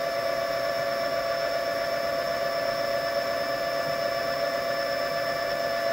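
Brushless motor, driven by a high-voltage BLDC controller, spinning an F150 truck alternator at a steady speed, with a constant whine made of several steady tones over a hum.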